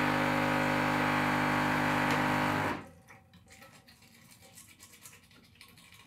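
Gaggia Classic 2015's vibratory pump humming steadily while it flushes water through the group head's shower screen, cutting off suddenly about three seconds in. Then the faint scratching of a brush scrubbing around the group head.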